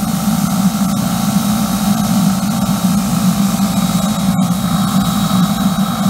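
Homemade steam boiler running under test: a steady, loud low roar with steam rushing out of its open outlet in a continuous hiss.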